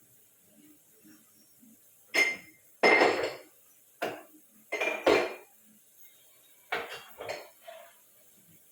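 A cooking utensil clattering and scraping against a cooking pot, in about seven short, irregular clanks, the loudest around the middle.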